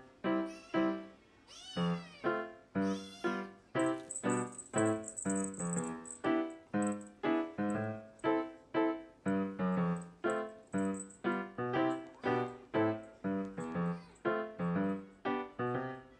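A hungry two-month-old Munchkin kitten meowing, with rising-and-falling calls, over background music of evenly spaced notes.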